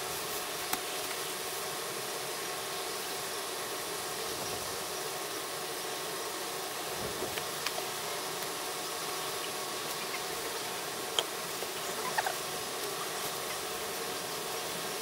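Steady outdoor background noise with a faint hum, broken by a few scattered light clicks and taps.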